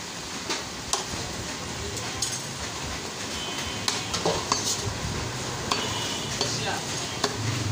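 Butcher's knife cutting beef on a wooden chopping block: irregular knocks and clicks as the blade meets the block and cut pieces are set down, with a short metallic clink about six seconds in.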